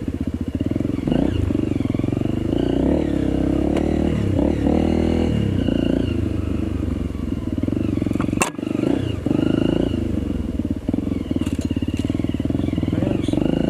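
Trail motorbike engine running under a rider, its pitch rising and falling with the throttle. About eight and a half seconds in there is a sharp knock and the engine note briefly drops before carrying on.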